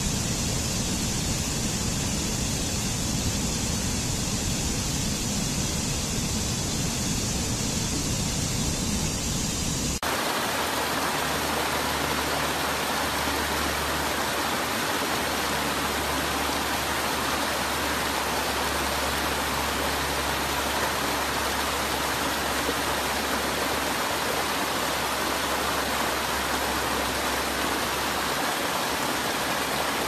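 Steady rush of water tumbling over rocks in a small cascading stream. About ten seconds in, the sound switches abruptly to a different, fuller rush of water.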